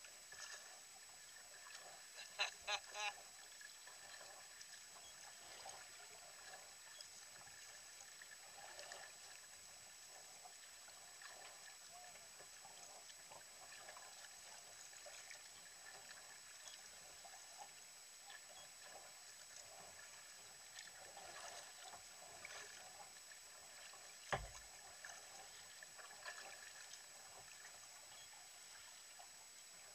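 Faint strokes of a double-bladed kayak paddle and water lapping at a sea kayak's hull, under a faint steady high whine. A few short louder sounds come about two seconds in, and a single sharp knock comes about two-thirds of the way through.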